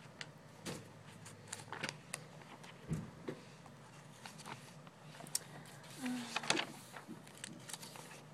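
Glossy pages of a thick product catalog being handled and turned, with crisp paper rustles and flicks several times over.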